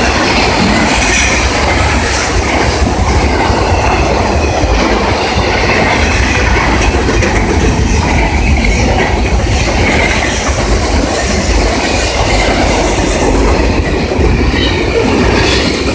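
Cars of a CSX freight train rolling past close by: a steady, loud rumble and clatter of steel wheels on the rails.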